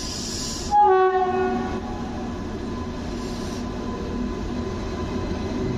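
Locomotive horn of an approaching train: one loud blast, about a second long, starting about a second in, its pitch dipping at the start. A short hiss comes just before it and again about three seconds in, over the steady hum of the trains.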